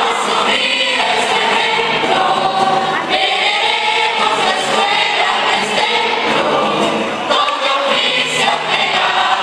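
A mixed choir of young women and men singing together in sustained, flowing phrases.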